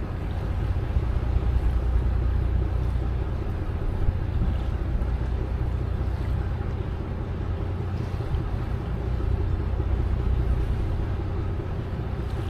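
Steady low drone of a cruise boat's engine under way, with the hiss of moving water and air.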